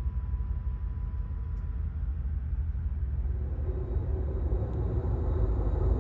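Amtrak Coast Starlight passenger train running: a steady low rumble of wheels and track, growing a little louder over the last few seconds.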